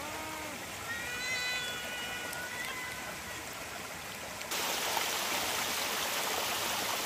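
A cat meowing: a short falling meow at the start, then a longer, higher meow. About four and a half seconds in, a steady rush of falling water from a small waterfall sets in.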